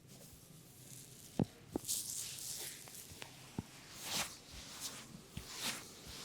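Head massage: hands rubbing and scratching through hair in rustling swishes, with two sharp taps about a second and a half in.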